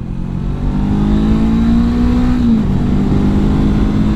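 Honda CB500X's 471 cc parallel-twin engine pulling hard as the motorcycle accelerates out of a corner, its note climbing, dipping once about two and a half seconds in, then climbing again. Wind rush runs under it.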